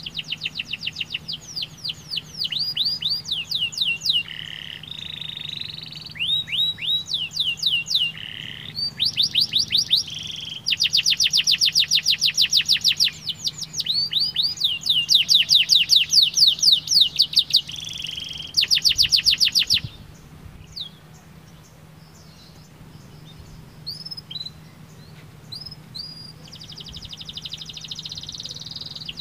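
Domestic canary singing a long song of rolling trills, each phrase a fast run of identical repeated chirps, some rising and some falling. The song is loudest in the middle, drops to a few softer scattered notes after about twenty seconds, and the trills start again near the end.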